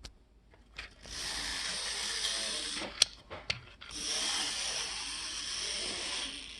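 Märklin Z scale railbus running on track, its newly fitted 5-pole motor and wheels giving a steady high whir, in two runs about two seconds each with a short pause and a few sharp clicks between them.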